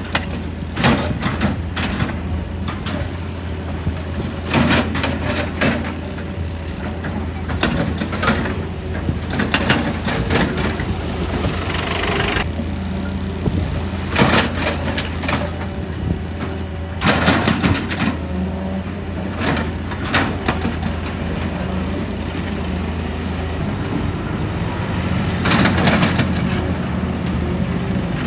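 Excavator's diesel engine running steadily, with clusters of sharp clanks and knocks every few seconds and a brief hiss about twelve seconds in.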